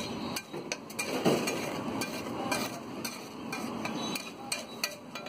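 Flat metal spatula scraping and knocking on a large steel tawa as a thick batch of pav bhaji is spread and turned, with the bhaji sizzling. The knocks and scrapes come irregularly, a few each second.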